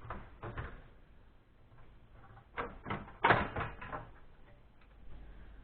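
Knocks and clatter of desktop PC parts being handled and pried at during disassembly, with a few light clicks near the start and a cluster of sharper knocks a little past halfway.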